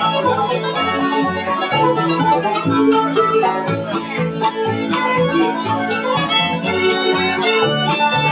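Bluegrass band playing live: fiddle, mandolin, acoustic guitar and banjo picking a fast tune over low notes on a steady beat.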